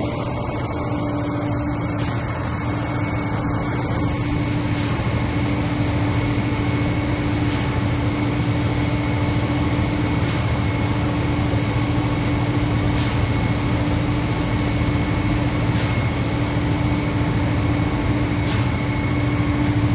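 Concrete pump truck running steadily while pumping concrete, with a faint regular knock about every two and a half to three seconds as the pump strokes.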